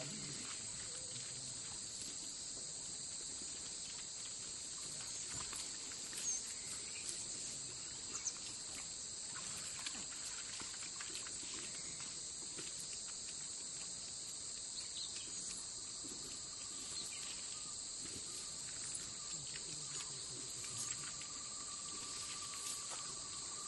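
Steady high-pitched chorus of insects droning without a break, with scattered faint clicks. A second, lower steady note joins in about two-thirds of the way through.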